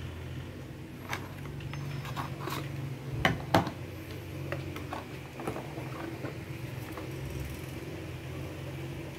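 Handling clicks and knocks of hard plastic: a keyless drill chuck set down into its slot in a plastic tool case and the rotary hammer lifted out, with two sharp knocks about three and a half seconds in. A steady low hum runs underneath.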